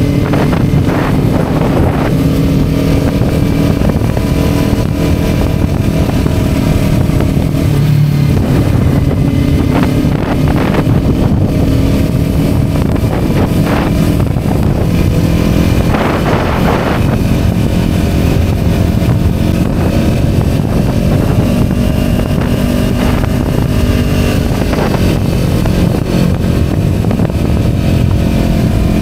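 Kawasaki Ninja 250 motorcycle engine running steadily while the bike cruises, heard from on board with wind rushing past.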